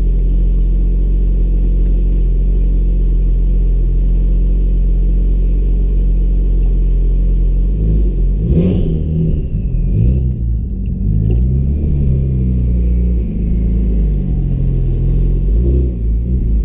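Porsche engine idling steadily, then revved up and down several times from about eight seconds in. The engine is one being diagnosed for misfires.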